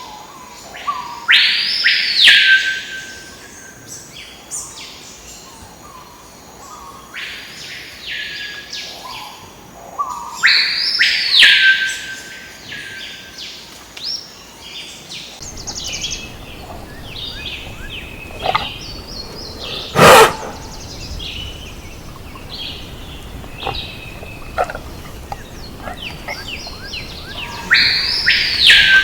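Tropical forest birds calling. A loud call that sweeps up and falls away comes three times, about nine seconds apart, over smaller chirps and whistles. A single sharp crack sounds about two-thirds of the way through.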